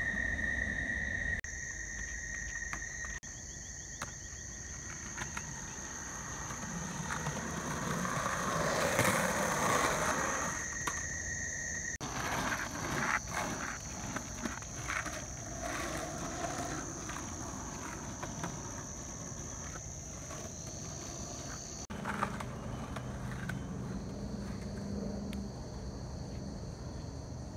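Skateboard wheels rolling on a paved path, with a rushing rise and a run of sharp clicks from the board, under a steady high-pitched insect drone. The sound breaks off and changes abruptly several times where short clips are joined.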